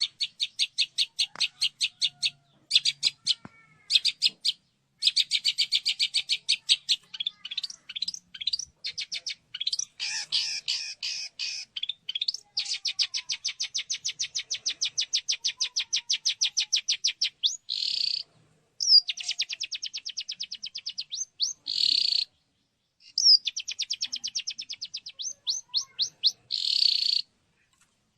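Long-tailed shrike (cendet) singing: long runs of rapid, evenly repeated high chattering notes, broken by a few short harsh rasping notes.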